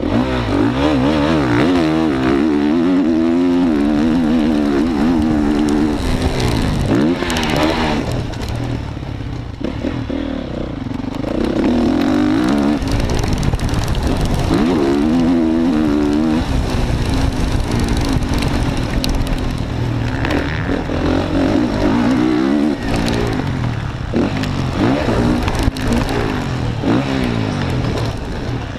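Motocross bike engine heard close up from an onboard camera, revving hard and easing off again and again as the rider accelerates down straights and rolls off into corners.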